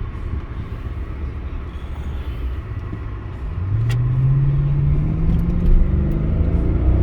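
Mercedes-Benz E63 AMG's 6.2-litre V8 heard from inside the cabin while driving: a low steady rumble, then about three and a half seconds in the engine note swells and climbs in pitch as the car accelerates. A single short click sounds just after that.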